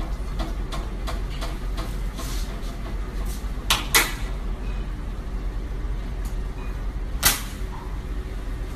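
A long butcher's knife being handled over a slab of raw beef: light clicks about three a second, then two sharp knife strikes about four seconds in and another near seven seconds, over a steady low hum.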